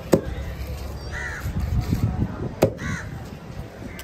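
A heavy knife chops down through a fish onto a thick wooden cutting block twice, about two and a half seconds apart, each a sharp thud. Crows caw in between, twice.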